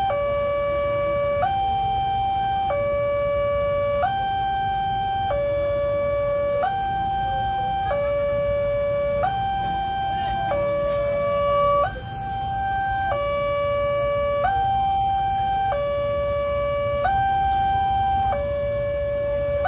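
Railway level-crossing warning alarm sounding its electronic two-tone signal, alternating a lower and a higher tone about every second and a quarter, warning that a train is at the crossing. A steady low rumble runs beneath it.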